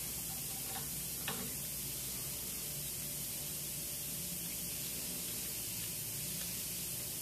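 Steady high hiss of room or recording noise, with a couple of faint metallic clicks about a second in as a check valve is handled and threaded by hand into a stainless steel pump head.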